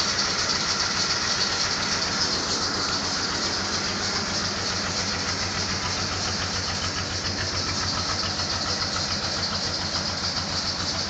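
Dodge truck engine idling steadily, with an even rapid pulse and a constant hiss.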